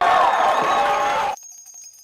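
Concert crowd cheering and shouting, cut off abruptly about a second and a half in, then faint tinkling bell-like tones.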